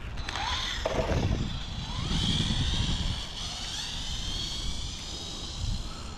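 Arrma Typhon TLR RC buggy accelerating, its electric motor and drivetrain giving a high whine that rises in pitch about a second in and then holds. A rumble of tyres and wind runs underneath.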